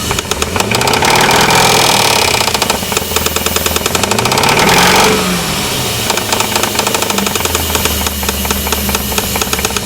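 1999 Jeep 4.7-litre V8 engine with a knock, revved twice from idle and settling back each time; a rapid, even knocking runs through the running, the sign of an internal engine fault.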